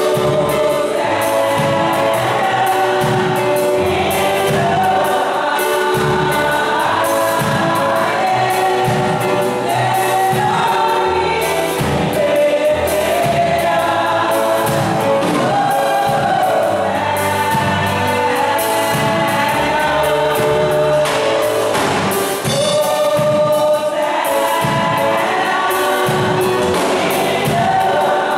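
Women's gospel choir singing together into microphones, amplified through the church's sound system.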